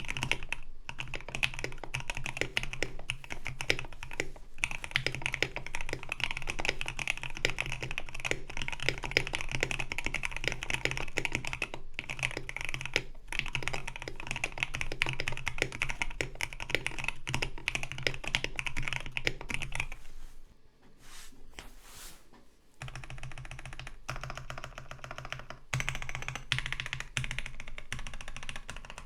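Fast typing on a KBD67 Lite gasket-mount mechanical keyboard with lubed Durock L7 linear switches, a polycarbonate plate and PBT keycaps: a dense run of keystroke clacks. About twenty seconds in the typing stops for a couple of seconds, then resumes.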